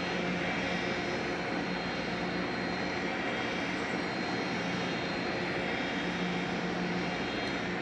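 Steady mechanical drone of a car ferry's engines and machinery, an even low hum with fainter high whining tones above it that hold constant throughout.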